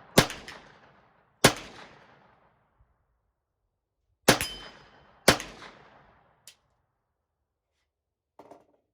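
Four gunshots from a Kel-Tec Sub-2000 9mm carbine, two in quick succession, then a pause of about three seconds and two more, with a metallic ring from rounds striking AR500 steel target plates.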